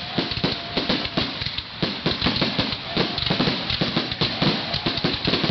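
Fireworks going off in a rapid, nearly continuous series of bangs, pops and crackles.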